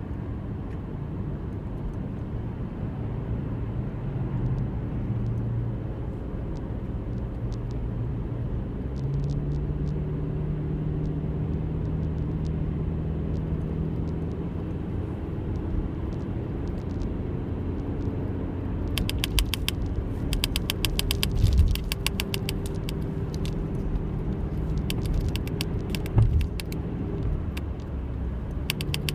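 A motor vehicle's engine running with a steady low rumble and hum. About two-thirds of the way in, a rapid clicking rattle joins it, and two short knocks stand out near the end.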